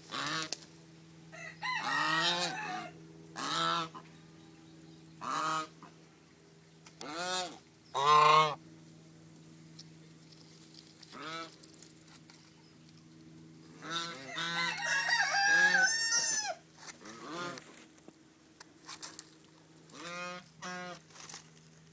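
White Chinese geese honking: loud single calls every second or two, with several geese calling over one another for a couple of seconds about two-thirds of the way in.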